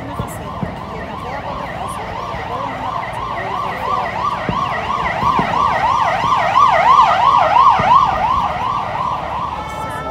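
Emergency vehicle siren on a fast yelp, its pitch swinging up and down about three or four times a second and growing louder over several seconds, then changing to a steady tone near the end.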